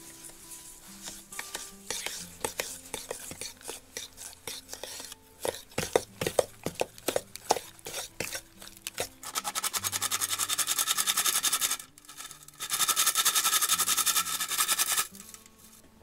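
Batter being whisked in a stainless steel bowl with a metal utensil: scattered clinks and scrapes of metal on metal, then two spells of fast, even beating against the bowl, the first starting about nine seconds in and the second near thirteen seconds, each a few seconds long.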